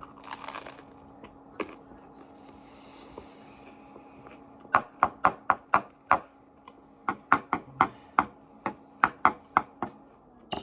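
Knife chopping on a cutting board: two runs of quick, even knocks, about four a second, in the second half. A steady low hum sits underneath.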